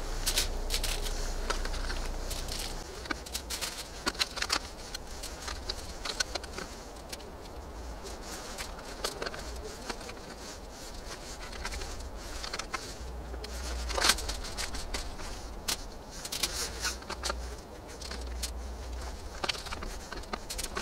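Aluminium foil and a foil tray crinkling and clicking as pieces of food are picked up and laid on the foil, in scattered short crackles, with one sharper click about two-thirds of the way through, over a steady low rumble.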